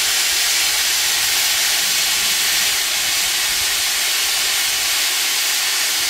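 A steam donkey's boiler venting steam in a loud, steady hiss.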